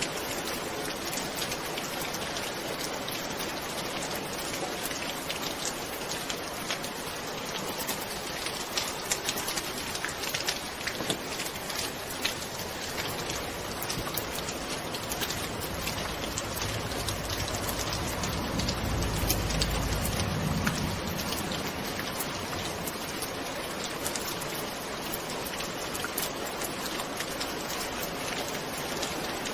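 Steady heavy rain with a dense patter of individual drops hitting a surface. About halfway through a low rumble of soft, distant thunder swells for a few seconds and fades.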